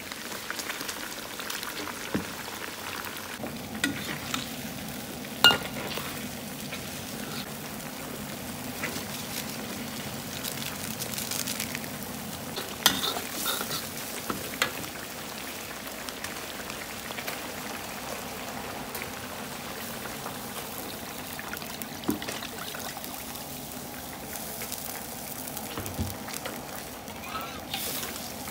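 Snakehead fish frying in hot oil: a steady sizzle, with scattered sharp clicks and knocks.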